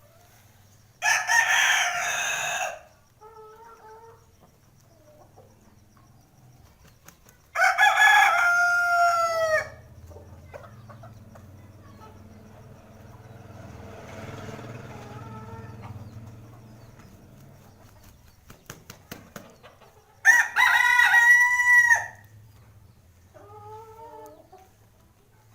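Rooster crowing three times, each crow lasting about two seconds, with softer, shorter calls between the crows.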